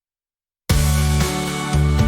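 Dead silence, then about two-thirds of a second in, instrumental music cuts in suddenly at full level with a heavy bass line and held pitched notes, with no singing.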